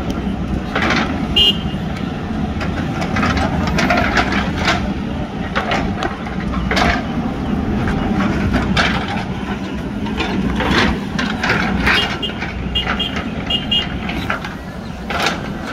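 JCB 3DX backhoe loader's diesel engine running steadily under load while its bucket scrapes and knocks through soil and stones. A few short high beeps sound about a second in and again near the end.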